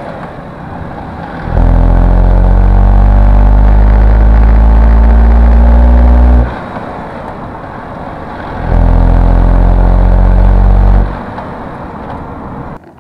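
Tata Altroz's 1.2-litre three-cylinder petrol engine pulling under throttle, loud and even-toned. It runs in two stretches of a few seconds each, with short lulls between them where it drops away.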